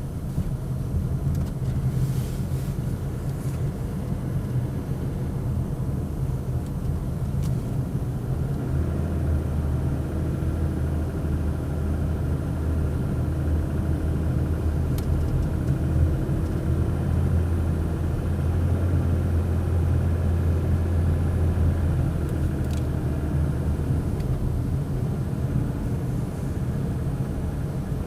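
Toyota 2GR-FE 3.5-litre V6 running under load while the vehicle is driven, a steady low drone that grows stronger for a stretch in the middle. This is the owner's recording of a mild engine knock, which Toyota considers normal.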